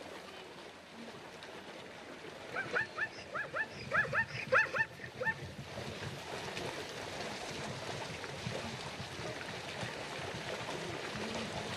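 An animal giving a quick run of about a dozen short, high calls a few seconds in, over a steady background hiss.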